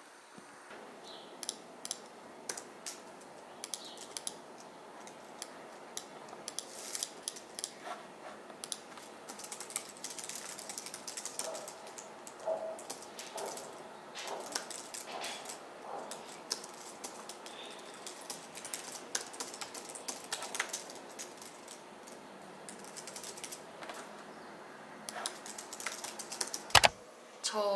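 Typing on a low-profile computer keyboard: irregular soft key clicks over a faint hiss, with one sharper knock near the end.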